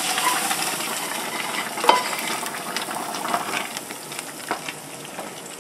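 Sizzling of hot sautéed peppers, cilantro and spices in olive oil as they are scraped from a skillet into a pot of chili and stirred in with a wooden spoon, with a few knocks of the spoon; the sizzle fades toward the end.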